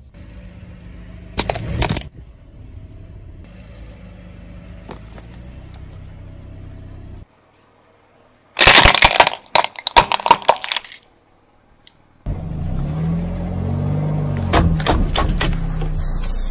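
A car's engine runs while its tyre rolls over and crushes small objects: a short crunch about a second and a half in, then a loud run of plastic cracking and snapping from about nine to eleven seconds. Near the end the engine is louder, rising and falling in pitch, with more cracks.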